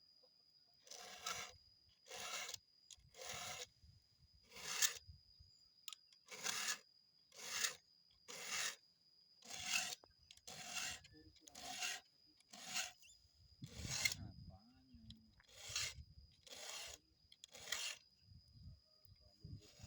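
A file being drawn across the teeth of a chainsaw chain to sharpen it: about one short rasping 'sreset' stroke a second, in one direction only, with a couple of brief pauses.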